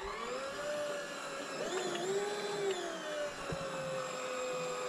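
Electric deep-drop fishing reel's motor whining as it winds in line with a shark hooked on. Its pitch climbs in the first half second and then holds steady, with a second wavering whine rising and falling about two seconds in.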